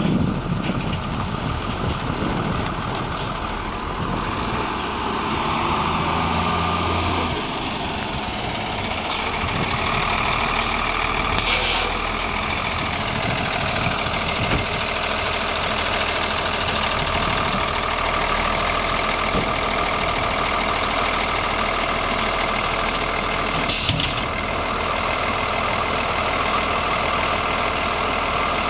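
Heavy truck engine, likely a fire engine's diesel, running steadily. Its tone shifts about seven seconds in, and there are two brief sharp hisses, one near the middle and one about two-thirds of the way through.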